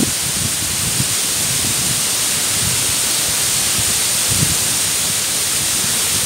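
Water pouring down the Mumlava waterfall into its pool: a loud, steady rushing noise.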